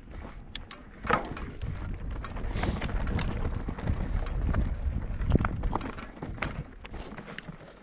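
Mountain bike rattling and clattering over a rocky trail, with irregular knocks and a low wind rumble on the microphone. It gets louder about a second in.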